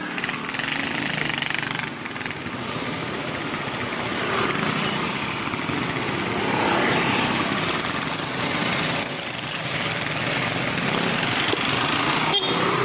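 Motorcycles running along a street, heard from a moving motorcycle as a steady engine and road noise. There is a short knock near the end.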